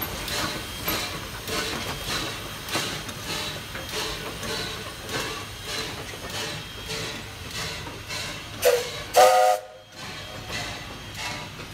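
Jeddo Coal No. 85, a small 0-4-0T tank steam locomotive, chuffing steadily under way at a little under two exhaust beats a second. About nine seconds in, its steam whistle gives two short blasts, the second louder. The chuffing is fainter just after the whistle.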